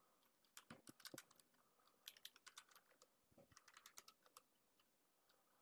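Faint computer keyboard typing: three quick runs of keystrokes with short pauses between them.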